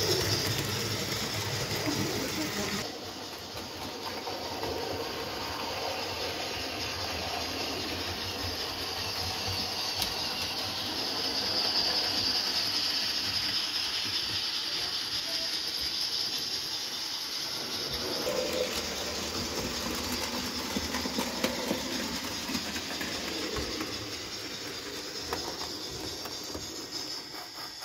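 Trix HO-scale 040D model steam locomotive and its wagons running on the layout's track: a steady rolling and motor noise with a constant hiss over it, a little quieter from about three seconds in.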